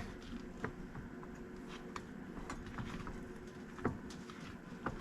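Faint, scattered clicks and taps of metal parts and hand tools being handled, about one a second, over a low steady hum.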